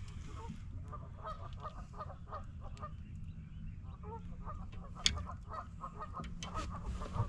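Geese honking in long runs of short, rapid calls, over a steady low rumble, with a sharp knock about five seconds in and another near the end.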